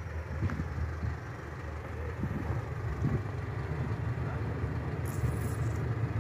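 Low, steady engine rumble from a river ferry's pusher boat as the loaded ferry moves slowly toward the landing. A brief faint hiss sounds about five seconds in.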